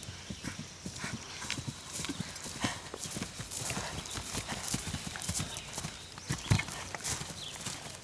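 Hoofbeats of an event horse galloping on the cross-country course, a quick irregular run of dull thuds.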